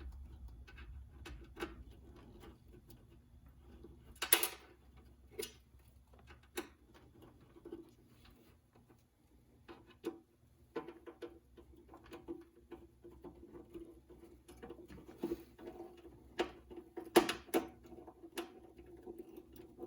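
Irregular clicks and scraping of a screw being turned in by hand with a screwdriver into a tight, undersized hole, the clicks coming more often in the second half.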